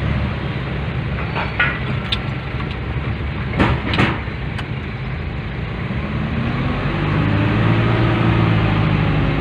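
A motor vehicle driving, its steady road noise broken by a few sharp knocks, with an engine note that rises and falls from about six seconds in.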